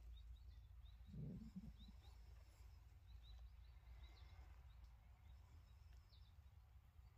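Near silence: faint outdoor ambience with small, distant bird chirps over a steady low rumble, and one brief, soft low sound about a second in.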